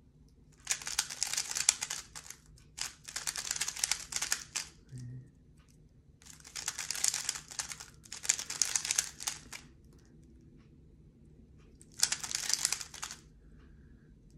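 Plastic 3x3 speedcube being turned quickly by hand: five bursts of rapid clicking layer turns, each a second or two long, with short pauses between them, as algorithms are executed in a blindfold solve.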